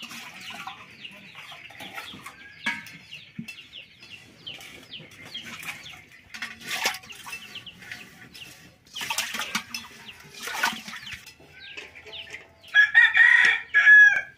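Chickens clucking, with a loud crow near the end. Sharp clinks and scrapes of aluminium pots being handled and scrubbed come in between.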